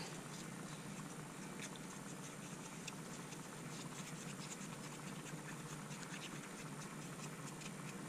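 Faint scraping and light irregular clicks of a wooden stir stick mixing acrylic-tinted epoxy in a small plastic cup, over a steady low hiss.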